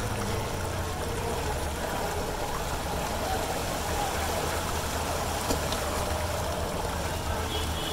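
Floodwater sloshing and churning steadily around a cycle rickshaw's wheels as it wades through a flooded street, over a low steady rumble.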